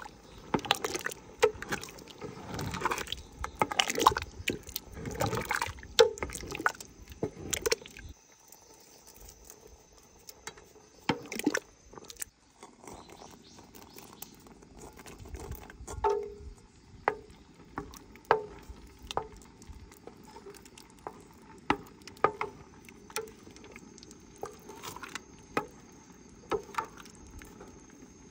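A cooking spoon mashes soft cooked pumpkin and rice in a pot, with wet squishing and scraping and clicks against the pot for the first several seconds. Later the spoon stirs thick pumpkin porridge, with separate wet clicks about once a second.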